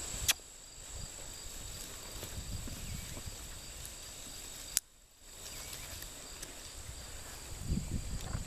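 Field insects chirring steadily at a high pitch over a low rumble that grows louder near the end. A sharp click just after the start and another about halfway through, the second followed by a brief dropout.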